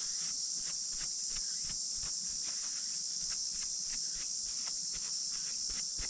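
Steady high-pitched insect chorus, with faint irregular clicks and rustles of gloved hands wrapping a freshly picked mushroom in tissue paper.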